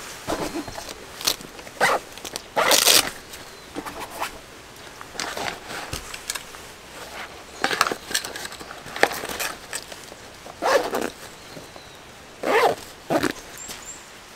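Camping gear being handled by hand: an irregular string of short rustles and scrapes from a nylon bag and a folding chair, a few of them sharp and loud.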